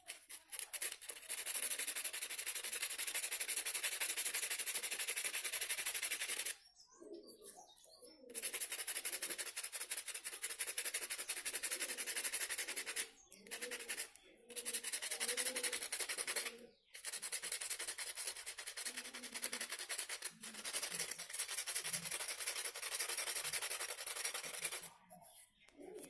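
Sandpaper rubbed rapidly back and forth by hand over the rusted steel housing of a bike horn, scouring off the rust: a steady rasping scrape in long stretches, broken by several short pauses.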